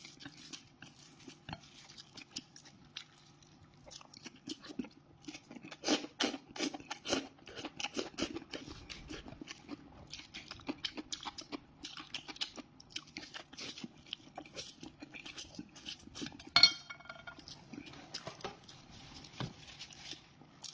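Close-up eating sounds: chewing and crunching food, with utensils clicking against a dish. About two-thirds of the way in, one sharp clink rings briefly, a utensil striking a plate or bowl.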